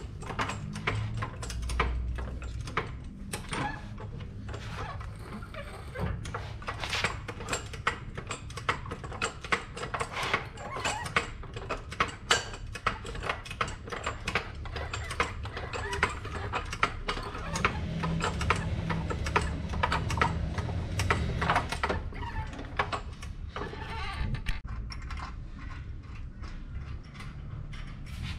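Irregular clicks, knocks and clatter of metal parts and tools being handled while a winch in its cradle is fitted under the front of a truck, over a steady low hum.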